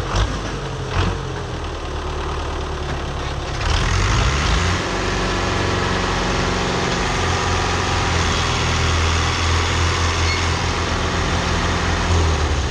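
Tractor diesel engine running. About four seconds in it revs up to a higher, steady pitch and holds there, straining to pull a heavily loaded trolley stuck in mud.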